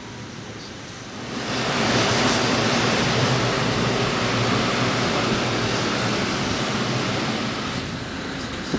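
A loud rushing noise swells about a second and a half in, holds steady, and eases near the end.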